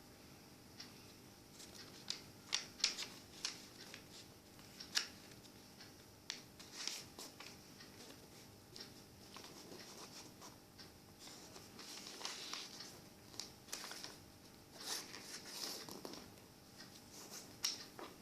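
A sheet of paper being folded and creased by hand: irregular crinkles, rustles and sharp little snaps, some louder ones close together a few seconds in and again near the end.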